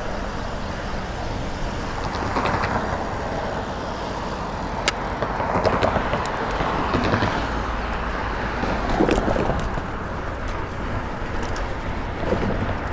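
Wind rushing over the microphone of a camera on a moving road bike, with road noise and cars swelling past several times. A single sharp click about five seconds in.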